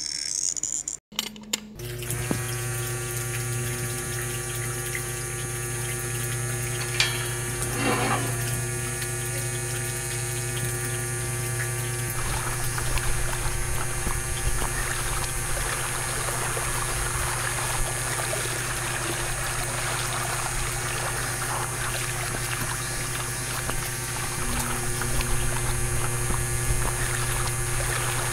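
A small DC motor driving a miniature homemade water pump starts about two seconds in and runs with a steady hum. Water pours from the pump's tube into a small toy tank, splashing more from about twelve seconds on.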